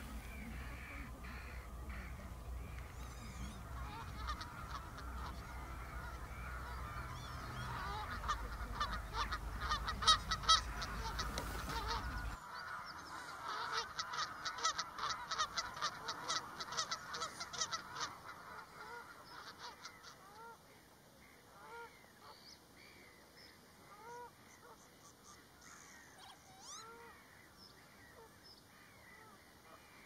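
Many waterbirds calling at once, a dense mix of short calls with quick high bursts, over a low rumble for the first twelve seconds. After an abrupt cut the rumble is gone and scattered short rising-and-falling calls carry on, quieter.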